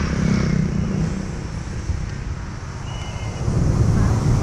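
Motorbike engine and street traffic noise, a steady low drone that eases off in the middle and picks up again near the end, with a short faint high tone about three seconds in.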